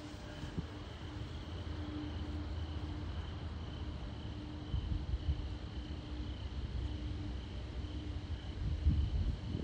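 Crickets chirping in a steady, evenly pulsing chorus, over a low rumble of wind on the microphone that swells about halfway through and again near the end.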